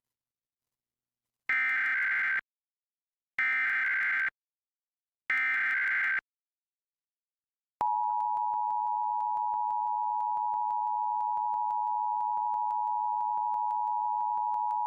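Emergency Alert System tones for a required monthly test. First come three identical short buzzy data bursts, the digital SAME header that encodes the alert, each just under a second long and about two seconds apart. After a pause, the steady two-tone EAS attention signal begins about halfway through and holds.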